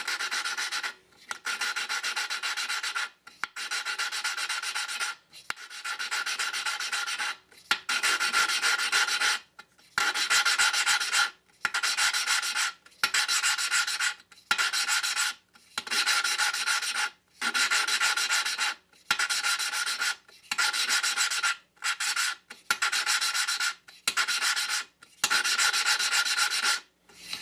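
Valve face being ground against its seat with lapping compound, a hand-spun suction-cup lapping stick rubbed back and forth on a 1984 10HP Briggs and Stratton engine valve: a gritty rasping in repeated one-to-two-second strokes with brief pauses. This is the valve being lapped to reseat it, the gritty sound lasting while the compound is still cutting.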